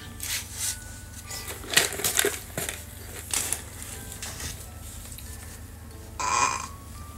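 Scattered light knocks and rustles of small objects being handled, with a brief high squeal about six seconds in.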